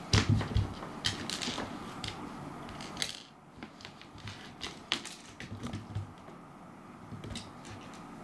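A cat pouncing and batting a dried persimmon seed across a wooden floor: a quick flurry of thumps from its paws landing and clicks of the seed skittering on the boards in the first second or two, then scattered single clicks as it paws at the seed again.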